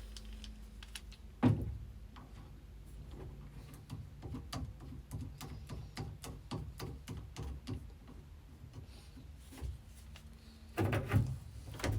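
Clicks and knocks of hand tools and small metal parts being worked. There is a sharp knock about a second and a half in, many light ticks after it, and a burst of louder knocks near the end, all over a steady low hum.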